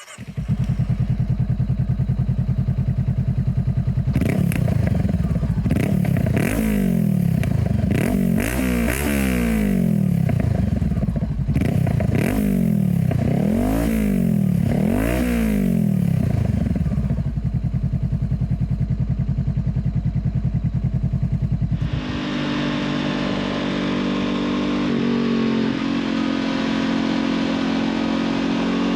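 Honda CB500F's 471 cc parallel-twin engine, running through an aftermarket Black Widow stainless silencer, starts up and idles. It is then blipped about eight times in a row, each rev rising and falling. It settles back to idle, and about 22 seconds in the bike pulls away with the engine note rising slowly.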